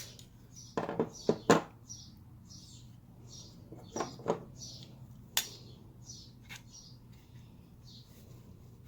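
Sharp metallic clicks and knocks of a Smith & Wesson M&P 2.0 pistol slide being worked onto a frame it will not seat on: the slide is a 4.25-inch one with a short barrel and guide rod. There is a cluster of clicks in the first second and a half and a few more around four to six and a half seconds. A faint high chirp repeats about every two-thirds of a second underneath.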